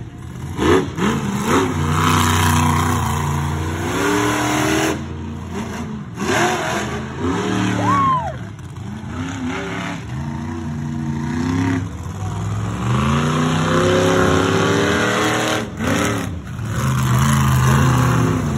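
Monster truck engines revving hard, their pitch climbing and falling again and again.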